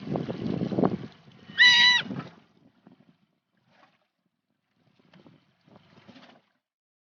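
Mother sea otter crying out for her lost pup: one loud, high-pitched call about two seconds in, over a low rumble of boat and water noise. After that it is mostly quiet, with a few faint scattered noises near the end.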